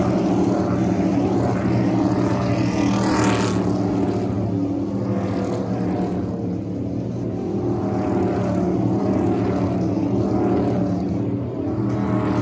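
NASCAR Cup Series stock cars' V8 engines driving by one after another along pit road, holding a steady droning note. One car passes close about three seconds in.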